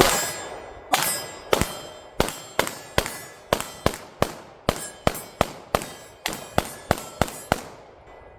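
A fast, uneven string of about eighteen pistol hits on steel targets, each a sharp metallic clang with a short ring, the first one loudest and longest-ringing.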